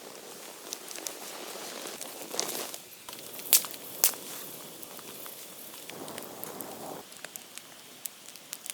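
Rustling and crackling from handling outdoor material, with scattered clicks and two sharp snaps about three and a half and four seconds in.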